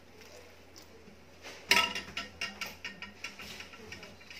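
A ladle clanks sharply against a pot about a second and a half in, then clinks and clicks lightly several more times, with a short metallic ring.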